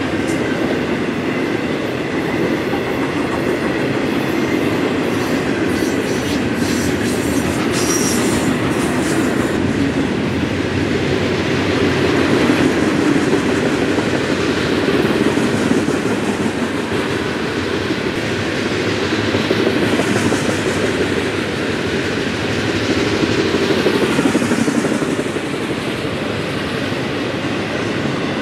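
Florida East Coast freight train's cars rolling past: a steady rumble with wheel clatter on the rails. A short run of sharper clicks comes about six to ten seconds in.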